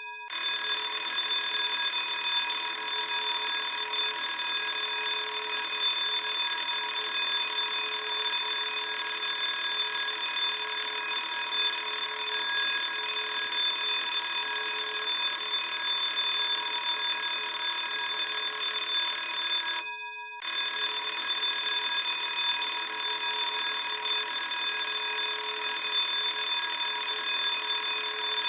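Classic school bell ringing continuously. It stops for about half a second right at the start and again about twenty seconds in, then rings on.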